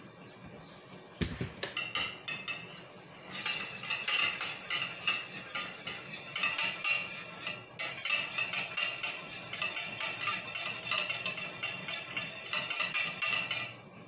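Wire balloon whisk beating egg yolks, milk and oil in a white enamel bowl: fast, steady clicking and scraping of the wires against the bowl. It starts about three seconds in after a few scattered knocks, and breaks off briefly about halfway through.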